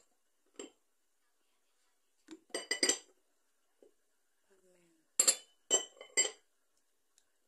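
Cut-glass serving jars and their lids clinking together in two quick clusters of bright, ringing clinks, one about two and a half seconds in and the other about five to six seconds in.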